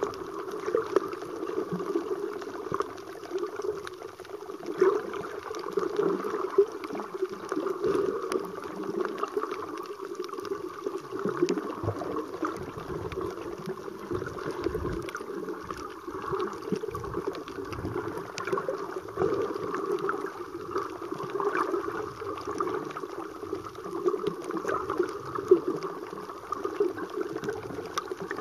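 Muffled water sloshing and gurgling heard underwater, fluctuating throughout, with many small clicks and knocks.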